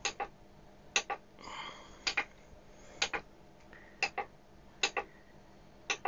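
VEVOR 737G battery spot welder clicking: sharp double clicks, one pair about every second.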